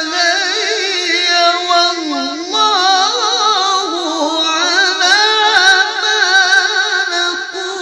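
A man's voice chanting a Quran verse in melodic tilawah style in maqam Rast, held in a high register. He draws out one long unbroken melisma full of quick trills and wavering turns of pitch, with no clear words.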